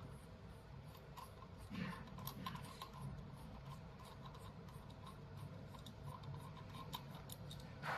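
Faint, irregular clicks and rubbing as a laser cutter's red metal lens tube is turned by hand to unscrew it, with a louder knock about two seconds in.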